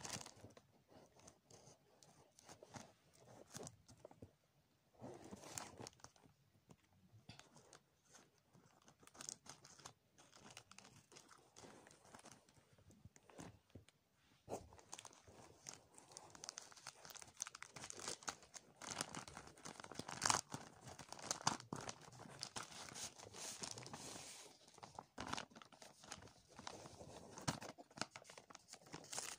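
Plastic mailer packaging being handled and pulled open by hand: irregular crinkling, rustling and tearing, coming on and off, busier and more continuous in the second half.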